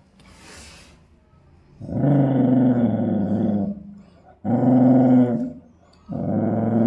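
Dog growling in three long low growls, the warning growl of a dog guarding its food. The growls come about two seconds in, near the middle and near the end, after a brief faint hiss at the start.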